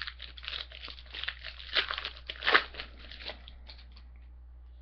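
Trading-card pack wrapper being torn open and crinkled: a quick run of crackles that stops about three and a half seconds in.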